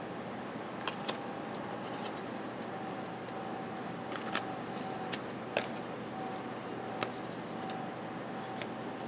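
Football trading cards being handled and flipped through, giving a scatter of short sharp clicks and snaps over a steady background hiss.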